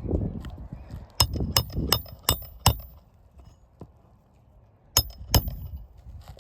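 Hand tools striking on a roof during an asphalt shingle repair: five sharp clinking strikes in quick succession, then two more near the end, over low scraping and rustling.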